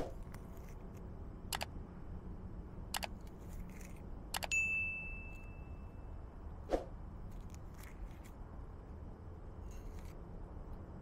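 Metal kitchenware clicking a few times. One clink rings with a clear tone for about a second and a half, and a duller knock follows a couple of seconds later.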